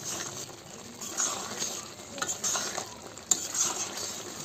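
Metal spatula stirring and scraping a thick lentil and drumstick-leaf dal in a pan over a low frying sizzle, in repeated strokes, with one sharp clack of the spatula against the pan a little past three seconds in. The dish is at its final stir, just cooked.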